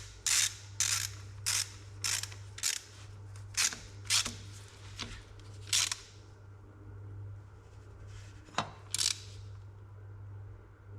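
Hand ratchet clicking in short bursts, about two strokes a second, as an oil plug on an excavator final drive is screwed back in; it stops about six seconds in, with two more short strokes a little later.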